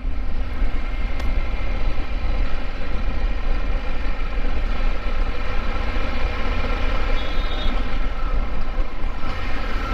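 Steady wind rush and road noise from riding a Triumph Tiger 1200 motorcycle at highway speed, with the engine's drone underneath.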